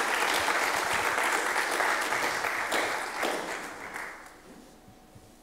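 Audience applauding, a dense clapping that dies away about three to four seconds in.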